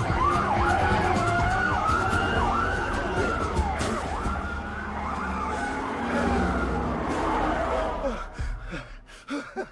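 Siren-like wailing, several overlapping tones gliding up and down in pitch over a steady low hum, dying away about eight seconds in.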